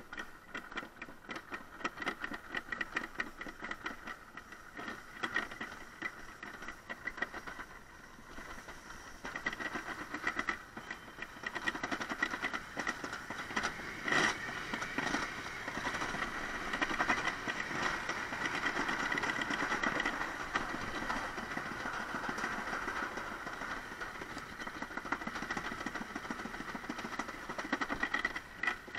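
Summer toboggan sled running down a metal trough track, a continuous rattling rumble with a steady high whine, growing louder about ten seconds in.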